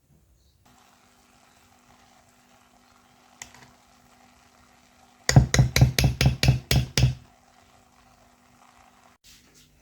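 A fast run of about nine loud knocks, about five a second, lasting around two seconds, over a steady low hum that stops near the end.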